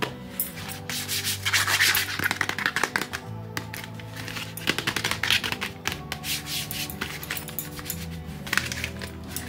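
Cardboard chocolate boxes rubbing and scraping against hands and other packs as they are picked up and turned over, in bursts of rustling about two seconds in, midway and near the end, over background music.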